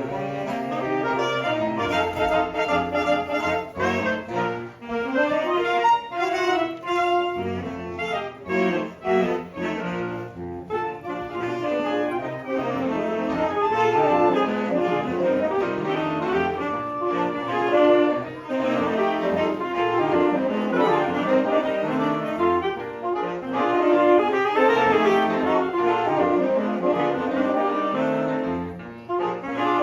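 Saxophone ensemble playing a piece together, several saxophones sounding overlapping melodic lines.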